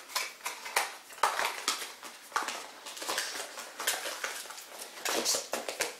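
Irregular light clicks, taps and rustles from handling small plastic cosmetics and the cardboard packaging of an advent calendar.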